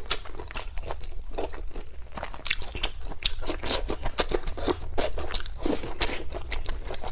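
Close-miked mouth sounds of a person biting and chewing a green chili pepper: many short, crisp crunches in quick, irregular succession.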